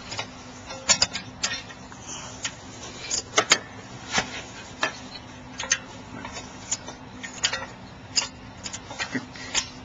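Half-inch drive ratchet clicking in short, irregular strokes as it turns a 7 mm Allen key to back out the rear brake caliper's slider bolts.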